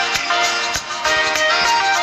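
Background music: plucked string melody over a steady beat.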